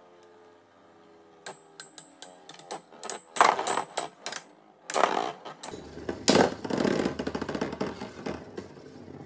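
Metal Beyblade spinning tops, Poison Serpent SW145SD and a rival, clashing in a plastic stadium. From about a second and a half in come sharp clicking hits that grow faster and louder, with the heaviest knocks around the middle. They turn into a steady rattling scrape as one top wobbles and loses spin.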